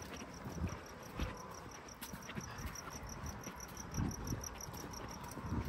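A cricket chirping in a steady, even pulse, about six chirps a second, with a couple of soft low thumps about four seconds in.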